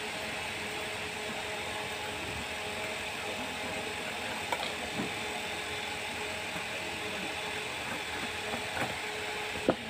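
A steady mechanical hum, with a few faint metal clicks as a hex nut is threaded by hand onto a bolt through a galvanized steel strap.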